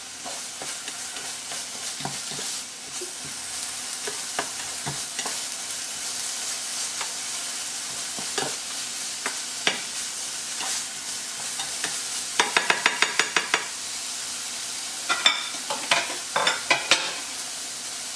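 Diced aubergine frying with chopped garlic and ginger in a nonstick pan: a steady sizzle under the scraping and clicking of a spatula stirring it. About twelve seconds in comes a quick run of about ten even clicks, and a few sharper clicks follow near the end.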